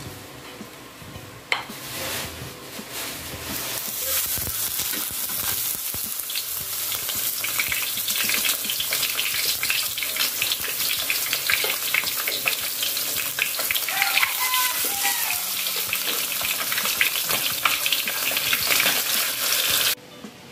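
A whole threadfin bream frying in hot oil in a nonstick wok: a sizzle and crackle that builds over the first few seconds into a steady, dense spatter, then stops abruptly near the end. The fish is only being fried briefly so it holds together when braised.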